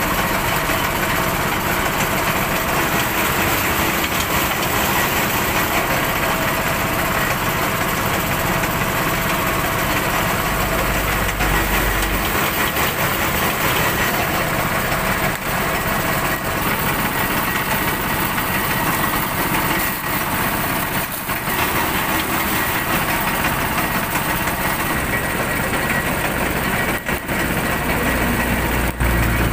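Small engine running steadily, driving a sugarcane juice press whose rollers crush the cane stalks fed through it.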